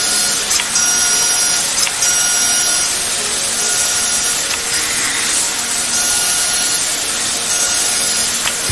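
CNC vertical milling machine cutting aluminium with a small end mill: a steady cutting hiss with a thin high whine that comes and goes.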